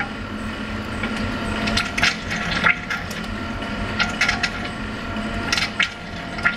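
Oil pump on a slowly turned-over Atlas marine engine, worked by an eccentric and rocker arm, gurgling and clicking in bursts about every second and a half as it sucks air along with the oil. A steady hum from the turning-over drive runs underneath.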